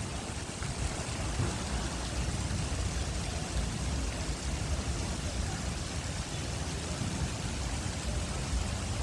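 Fountain water splashing and falling: a steady, even rush of water that holds unchanged throughout.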